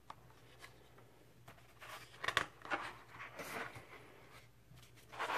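Pages of a large LP booklet being turned and handled: a few rustling paper swishes from about two seconds in, and another near the end.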